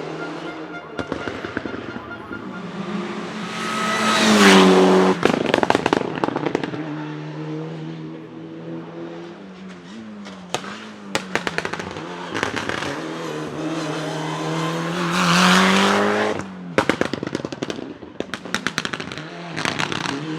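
Mitsubishi Lancer Evo IX Group N's turbocharged four-cylinder engine revving hard twice, each time followed by rapid volleys of bangs and pops from its anti-lag (misfiring) system, three volleys in all.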